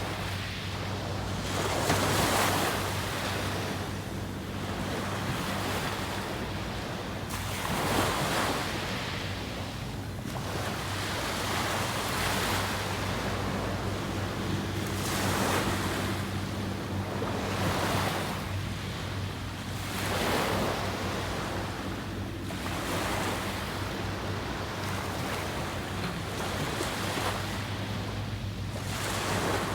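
Sea waves breaking and washing up the beach, swelling every few seconds, with a faint steady low hum underneath.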